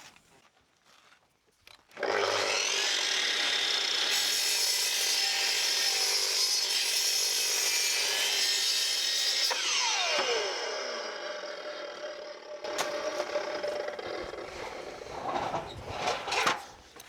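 Mitre saw starting up about two seconds in and cutting through a timber board at a 36-degree mitre with an 8-degree bevel (a compound cut). It runs steadily for about eight seconds, then the blade winds down with a falling whine, and a knock follows.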